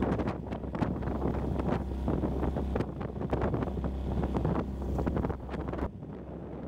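Strong wind buffeting the microphone over a small dinghy's outboard motor and water slapping the hull as it crosses choppy water. The rumble eases about six seconds in.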